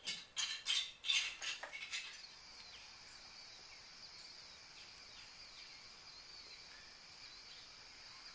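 A butter knife clinking against metal about five times in quick succession over the first two seconds, then a steady chorus of insects with a few short descending bird chirps.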